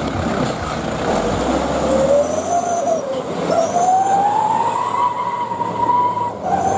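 Light diesel dump truck's engine revving hard under load as it pulls through deep mud, its wheels churning. A whine rises in pitch and holds high, then drops off briefly near the end.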